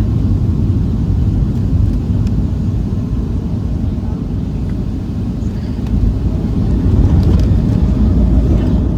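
Boeing 737-700 airliner running on the ground after landing: a steady low rumble that grows a little louder in the last few seconds.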